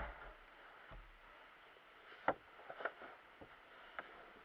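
Carpet-covered wooden seat board being laid onto its wooden supports: a thud at the start, a sharp knock about halfway through, then a few softer knocks as it settles.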